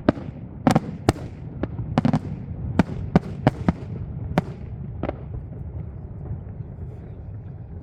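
Fireworks shells bursting in a rapid, uneven series of about ten sharp bangs over the first five seconds, then the bangs stop, leaving a low rumble.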